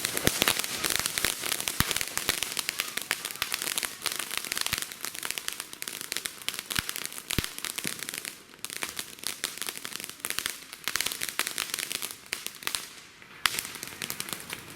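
Consumer fireworks going off in a dense, rapid stream of crackles and pops, thinning out briefly twice before picking up again.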